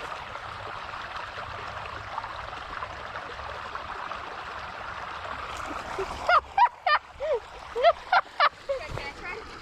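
Creek water running steadily over the stream bed. About six seconds in, a quick run of short, rising-and-falling calls breaks in, roughly eight in three seconds.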